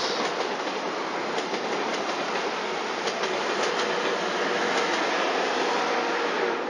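Passenger train running past at close range: a steady rolling rumble with occasional wheel clicks over rail joints.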